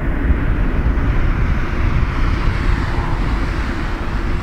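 Jet airliner engines running during takeoff, a steady noise heavy in the low end.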